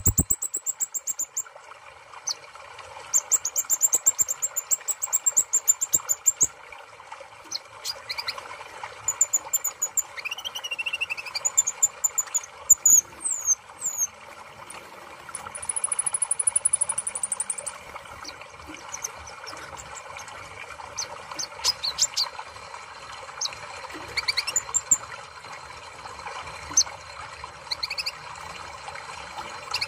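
Copper-throated sunbird (kolibri ninja) singing in bursts of rapid, high-pitched trills and short chirps, with one long high buzzing note about midway. A steady low hiss runs beneath.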